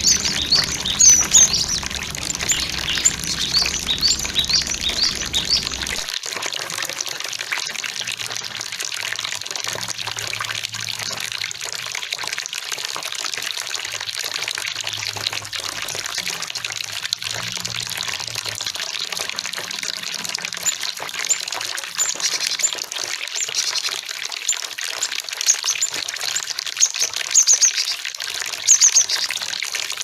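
Cinereous tits (gelatik batu) calling in quick series of high chirps over the steady rush of flowing water. The calls are thickest near the start and again in the last several seconds, and a low hum stops about six seconds in.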